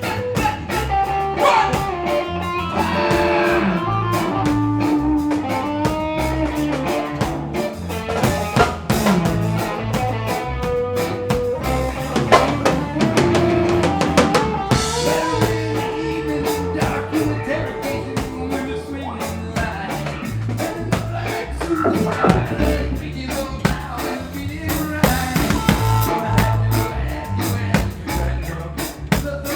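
Live rock band playing an instrumental passage: electric guitar carrying a melodic lead of held and bending notes over bass and a steady drum-kit beat.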